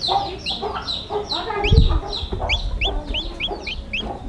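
Newly hatched chicks peeping steadily in short, high, rising chirps, about three to four a second, over lower clucking from hens. A low thump comes a little under two seconds in.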